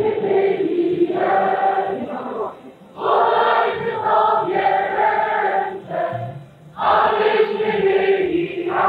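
A choir sings in long held phrases, with brief breaks about three and six and a half seconds in. The sound is dull and muffled, like an old tape recording.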